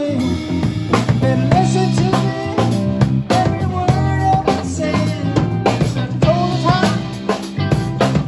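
Live band playing a song: a steady drum-kit beat under electric guitar, electric bass and a Yamaha electronic keyboard.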